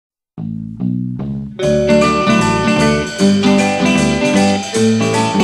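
Instrumental introduction of a pop record: three short opening chords, then the full arrangement comes in about a second and a half in.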